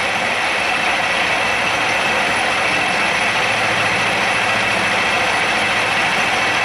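Milling machine cutter taking a steady cut across a cast iron block, the spinning insert shearing off chips over the hum of the spindle. The home-cast iron machines cleanly, cutting as cast iron should.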